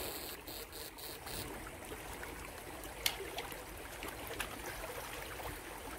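Shallow stream trickling over rocks, with a sharp click about three seconds in.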